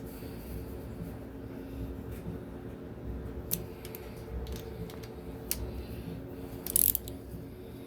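Light metallic clicks and taps from hand tools and engine parts being handled, with the loudest about seven seconds in, over a steady low hum.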